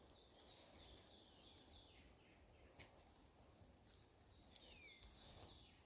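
Near silence: faint outdoor quiet with a few faint, falling bird chirps and a couple of small clicks.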